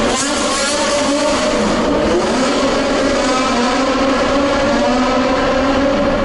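A car driving along the road: steady engine and road noise, with a few tones that slowly drift in pitch.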